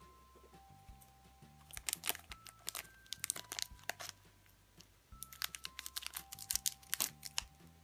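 Scissors snipping open a small clear plastic bag, with the thin plastic crinkling, in two bouts of crackly snips. Soft background music plays underneath.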